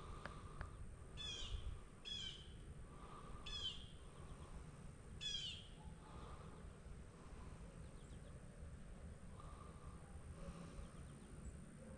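A bird calling: four short, high calls, each dropping in pitch, spaced a second or two apart in the first half, over faint low background noise.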